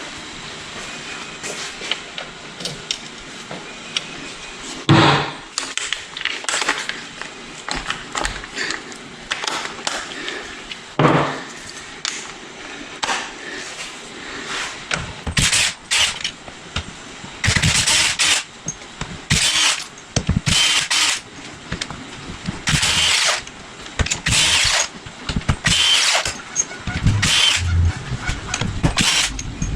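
Power tool with a socket run in short bursts, one every second or two through the second half, loosening bolts on a jet-ski engine's casing. A few sharp knocks come before it.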